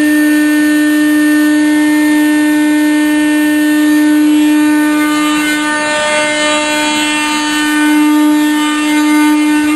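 Wet/dry shop vacuum motor running with a loud, steady whine; the pitch dips briefly about six seconds in.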